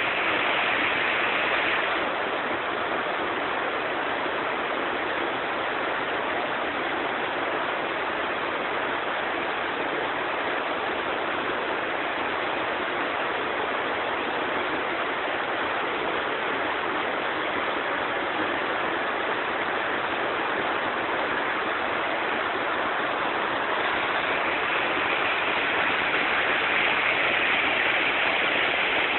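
Waterfall: a steady rushing of falling, splashing water. It eases slightly a couple of seconds in and grows a little louder and hissier again near the end.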